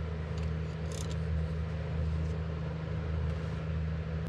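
A steady low hum runs throughout, with a few faint clicks as the transaxle dipstick is drawn out of its filler neck.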